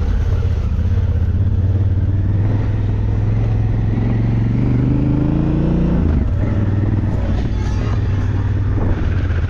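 Enduro motorcycle engine running under way. Its pitch rises for a few seconds, then drops sharply about six seconds in.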